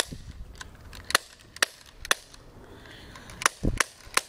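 A CO2 airsoft pistol firing BBs: about six sharp pops at uneven gaps of half a second to a second or so, with a duller, heavier thump among them near the end.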